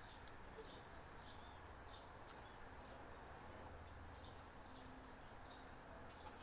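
Near silence: faint outdoor ambience with small chirps repeating a few times a second and a low steady hum.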